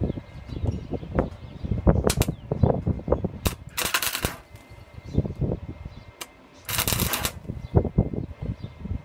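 Small 130 A gasless flux-core MIG welder's arc crackling in two short runs, one about three and a half seconds in and one about seven seconds in. Irregular low knocks and a few sharp clicks come and go around them.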